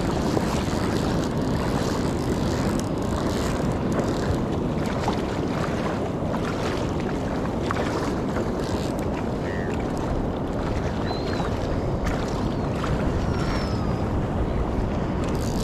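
Steady wind noise buffeting the microphone, with water lapping around the angler's legs in the shallows and a few light splashes.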